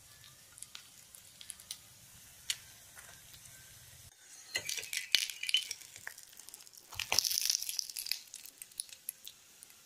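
Stuffed cauliflower parathas frying in hot mustard oil in a steel pan: the oil sizzles and crackles with scattered pops at first, then sizzles louder in bursts about five seconds in and again around seven to eight seconds.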